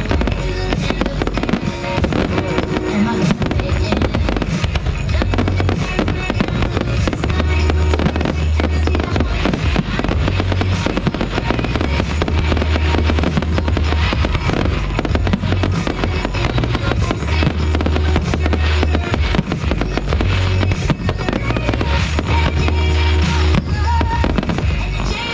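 Fireworks going off in quick, dense succession, many bangs and crackles overlapping, with music playing under them.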